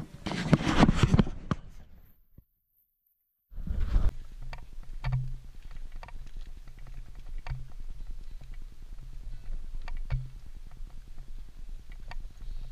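Wind buffeting an action camera's microphone: a steady low rumble, with scattered clicks from the camera being handled. It is preceded by a brief loud rustle of the camera being handled close up and a moment of dead silence at an edit cut.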